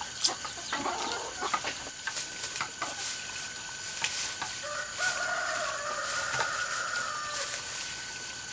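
A rooster crows once, one long call of about three seconds starting about halfway through. Light clicks and taps come in the first few seconds, over a faint steady high whine.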